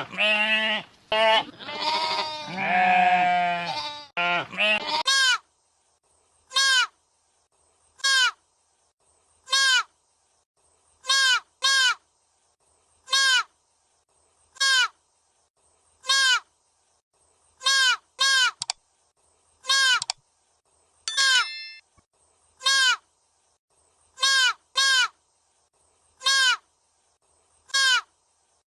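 An animal bleats in several wavering calls for the first five seconds. Then a single short, sharp call repeats at an even pace, about once every second and a half.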